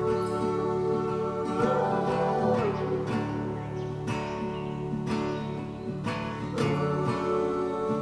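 Background music: sustained chords with a sharp stroke every one to two seconds.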